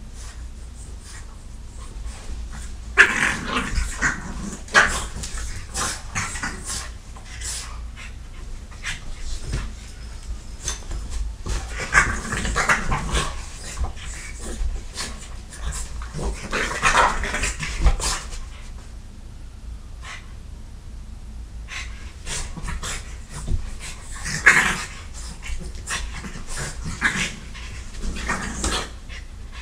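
A French bulldog and a Catahoula leopard dog tussling, dog noises and scuffling coming in several loud bursts a few seconds apart, with quieter stretches between.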